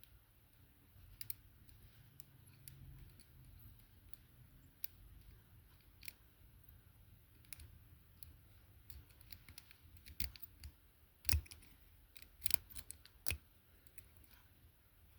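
Faint, scattered small metallic clicks of a pick working inside a handcuff-keyed padlock, with a run of louder clicks about ten to thirteen seconds in.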